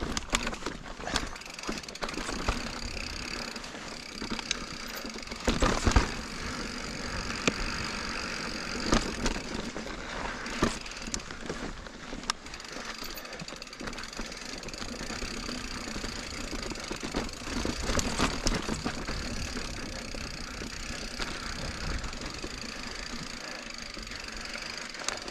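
2021 Giant Reign Advanced Pro 29 full-suspension mountain bike ridden over dirt and rock singletrack: a steady rush of tyre noise with frequent knocks and rattles from the bike. The heaviest knocks come about six seconds in and again around eighteen seconds.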